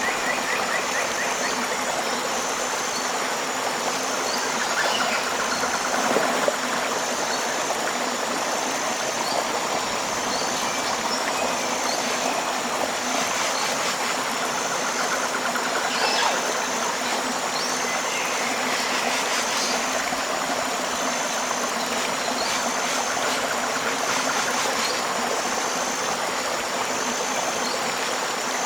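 River water flowing steadily, with a high, even pulsing chirp of an insect repeating about once a second, and a few faint short chirps from other wildlife.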